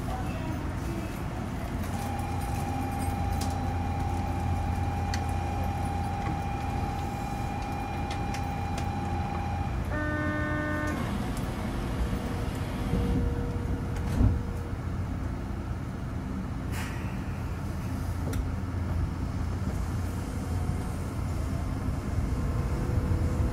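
Automated guideway train of the Osaka Metro Nanko Port Town Line standing at a station platform, its equipment humming low and steady. A long steady electronic tone runs from about two to ten seconds in and is followed at once by a short electronic chime. A single thud comes about fourteen seconds in.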